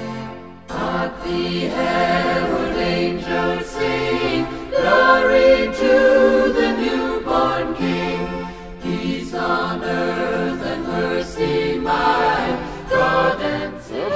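Background music with voices singing together in chorus over sustained accompaniment.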